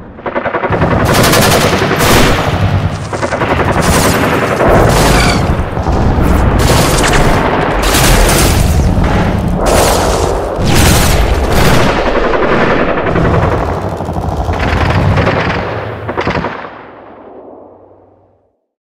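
Loud automatic gunfire in long overlapping bursts, shots packed into a near-continuous rattle, dying away near the end.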